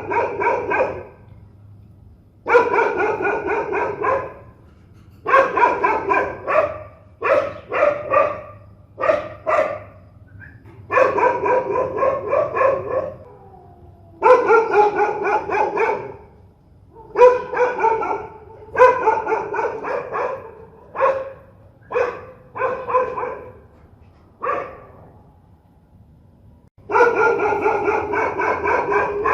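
Fierce dog barking in rapid volleys of one to two seconds each, separated by short pauses, with a few single barks in between.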